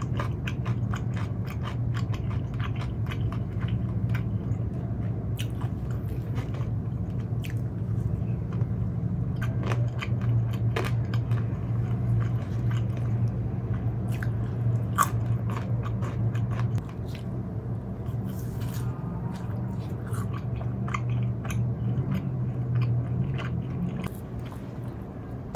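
Close-miked biting and chewing of fried food, with many sharp crisp crunches, over a steady low hum. The chewing gets a little quieter about two-thirds of the way through.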